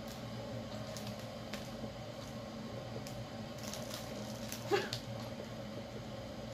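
Steady low room hum, with a few faint clicks and a short voiced sound from a person about three-quarters of the way through.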